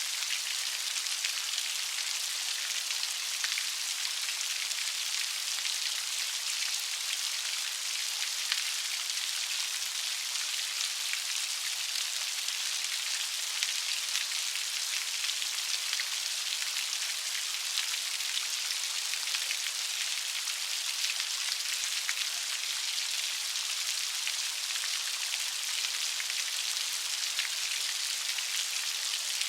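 Light rain falling steadily, a continuous even hiss made up of many fine drop patters.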